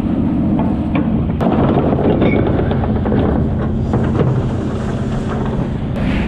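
Steady, loud drone of a pollock trawler's machinery on deck, with rushing sea wash and a few sharp metallic knocks from the gear.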